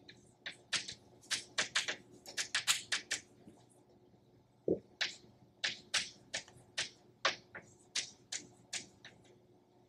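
Chalk writing on a blackboard: a quick string of sharp taps and short scratchy strokes as words are chalked, with a pause of about a second near the middle.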